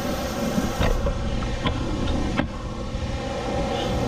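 Steady whir of a portable blower fan, with a few sharp clicks from a PB Blaster penetrating-oil spray can being handled at the bolts under the car.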